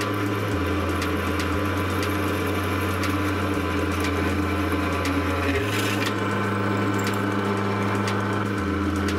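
Drill press running as a twist bit drills a 6 mm hole through a small steel strip held in a machine vise, with a steady cutting sound as metal chips curl off.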